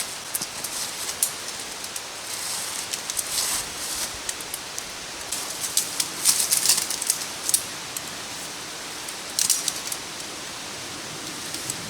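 Steady rush of water from a nearby creek and waterfall, with irregular crisp clicks and rustles of something handled close to the microphone, busiest about six seconds in and again near the ninth second.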